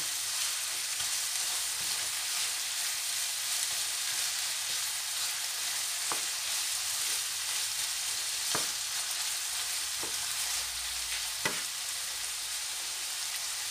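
Ground beef and shallots sizzling steadily in a frying pan while being stirred with a wooden spoon, with four short knocks spread through the second half.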